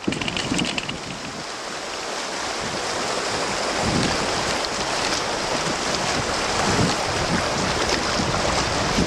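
Shallow river rapids at low flow, water rushing steadily over rocks, with wind gusting on the microphone now and then.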